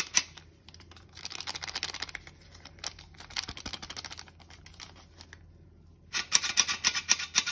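Stainless steel squeeze-handle flour sifter worked by hand, its wire agitator rasping and clicking rapidly against the mesh as dry powder sifts through. The clicks come in a quick run, pause briefly about five seconds in, then return louder near the end.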